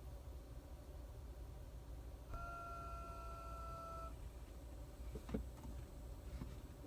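A single steady tone with a few higher overtones from a 2011 Toyota Prius, held for about two seconds from a little past two seconds in, over a low rumble; this is the unexplained weird sound the owner is asking about.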